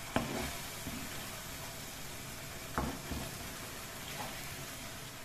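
Onion-tomato spice paste with a little added water sizzling and bubbling in a kadai as it cooks down. A wooden spatula knocks against the pan twice, once just after the start and once about halfway through.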